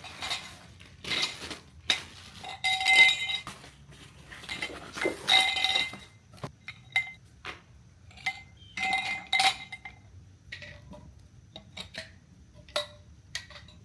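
Light metal objects knocking and clinking together many times, most knocks leaving a brief bell-like ring at the same few pitches.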